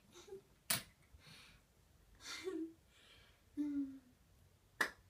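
A woman sniffing a perfume in several short breaths, some with a brief hummed 'mm', between two sharp clicks, one about a second in and one near the end.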